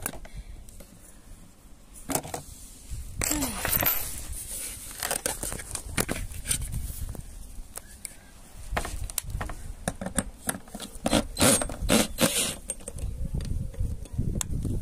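Scattered clicks, taps and small metallic rattles of lock hardware and screws being handled and fitted to a wooden box.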